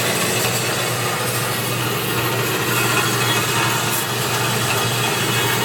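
A horizontal band saw running steadily with its belt-drive motor humming and the blade travelling around its wheels, no cutting in progress.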